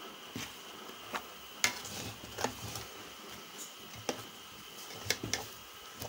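Metal spatula stirring wet leaves in a metal cooking pot: irregular scrapes and knocks against the pot, about seven in all. They sound over a faint steady hiss.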